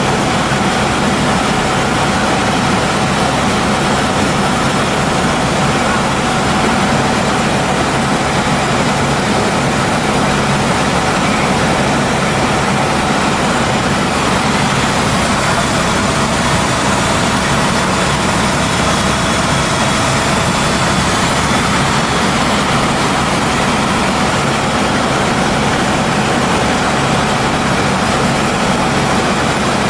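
Helicopter engine and rotor running steadily in flight, heard from inside the cabin as a loud, even rumble with a constant drone.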